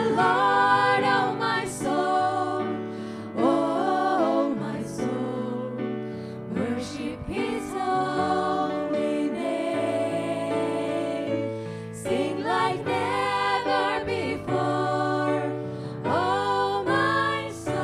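A group of women singing a contemporary worship song in harmony, accompanied by piano.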